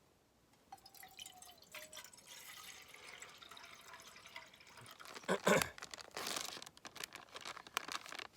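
Water being poured into a small camp cooking pot. About five seconds in comes a loud clunk, followed by a run of small clicks and rattles.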